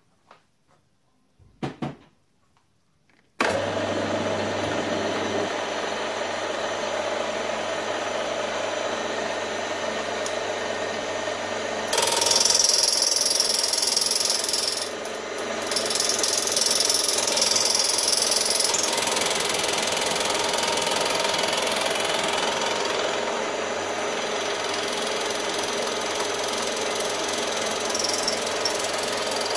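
Milling machine spindle switching on about three seconds in and running steadily with a low hum. From about twelve seconds in it grows louder and harsher as the fly cutter's single insert cuts across the cast iron exhaust manifold flange on a finish pass.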